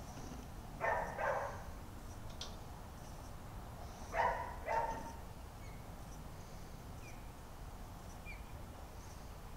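Short barks from a canine: two quick barks about a second in, then two more about four seconds in.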